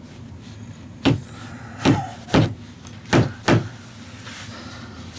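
Five sharp knocks at uneven spacing, starting about a second in, over a low steady hum.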